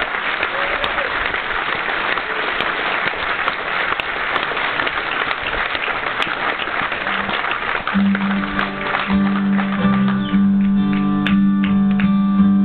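Audience applauding for about the first eight seconds; then a guitar starts playing, steady ringing chords with plucked notes.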